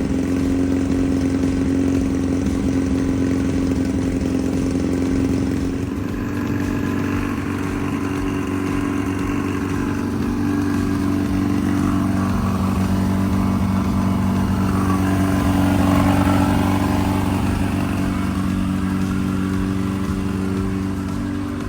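Air-cooled VW Beetle 1776cc flat-four engine running steadily, its note changing about six seconds in and getting a little louder around sixteen seconds.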